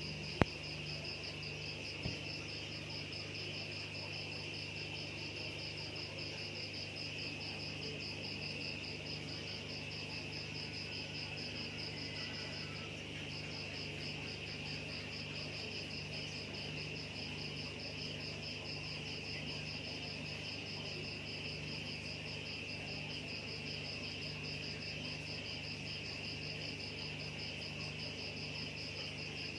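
Crickets chirping steadily: a fast, evenly pulsed high chirp with a second, lower insect trill beneath it, and the pulsing breaks off briefly about 13 seconds in. A low steady hum runs underneath, and a single sharp click comes right at the start.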